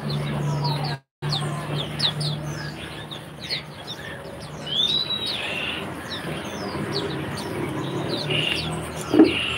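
Many caged songbirds chirping together in short, rapid, downward-sliding chirps, with one longer rising-and-falling whistled note about halfway through, over a steady low hum.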